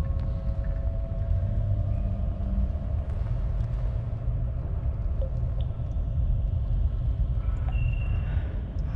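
Dark ambient soundscape: a steady low rumble with faint drawn-out tones above it and a few small clicks.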